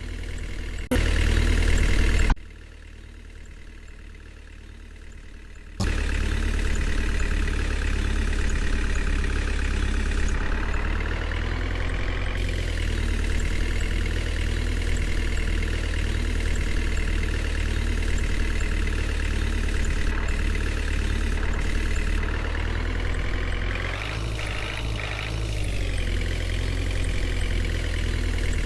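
Heavy vehicle engine running steadily at a low idle, broken by a few abrupt cuts between clips. Its pitch rises and falls back twice as it is revved.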